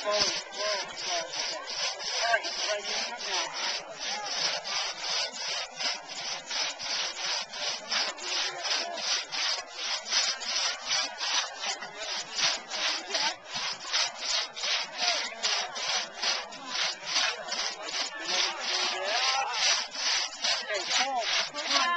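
Two-person crosscut saw cutting through a log in quick, even back-and-forth strokes, each stroke a rasp of the teeth through the wood, about three strokes a second.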